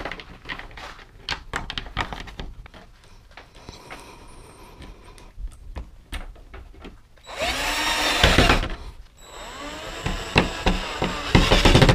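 Cordless drill driving the door-handle screws into a plastic resin shed door, in two runs with the motor pitch rising and falling: a short one about seven seconds in and a longer one near the end. Before that, a scatter of clicks and knocks.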